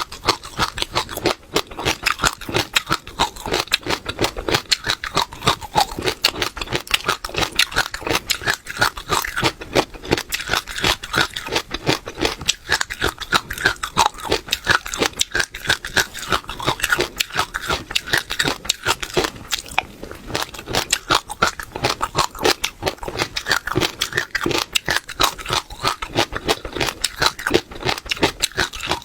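Close-miked chewing of seeds: a rapid, dense crackle of small crunches as the seeds are bitten and crushed between the teeth.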